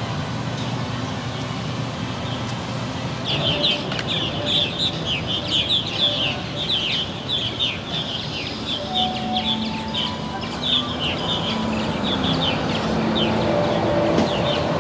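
Birds chirping in quick, busy runs of short high notes, starting about three seconds in, over a steady outdoor background hum.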